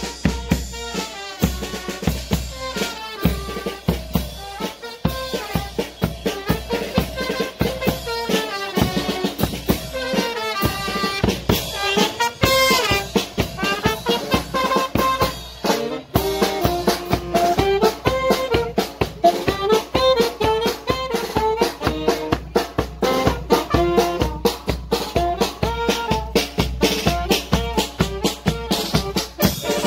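A Mexican brass band (banda) playing: trumpets, trombone and saxophone carry the tune over a steady snare and bass drum beat.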